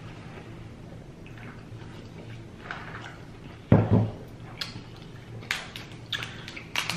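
King crab leg shell being cracked and pulled apart by hand, with one loud crack about four seconds in and a few sharper shell snaps near the end, amid wet eating sounds.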